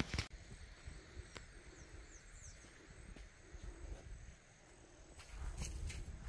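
Faint outdoor rural ambience with insects. A sharp knock at the very start and a low rumble that comes in about five seconds in.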